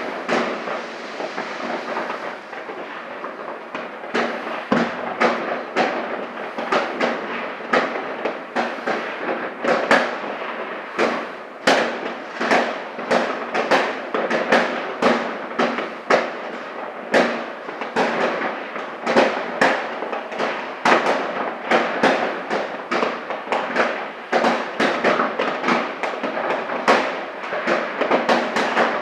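New Year's fireworks and firecrackers going off without pause: sharp bangs and cracks come several times a second over a continuous crackle.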